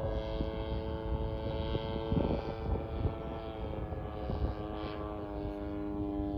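DLE 55RA single-cylinder two-stroke gas engine and propeller of a 1/5-scale RC P-51D Mustang running in flight, a steady distant drone overhead.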